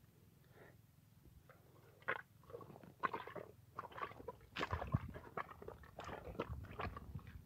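Footsteps crunching on a gravelly dirt bank at about two steps a second, starting about two seconds in.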